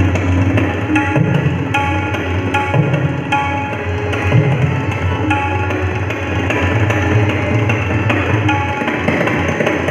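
Tabla solo in teental: fast, dense strokes on the tabla with deep, swelling bass strokes from the bayan. Underneath, a harmonium repeats a melody.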